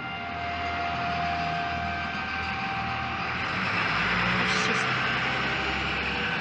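A droning, trumpet-like tone with a few overtones, fading over the first three seconds, while a rushing noise swells and peaks about four seconds in, over a low hum.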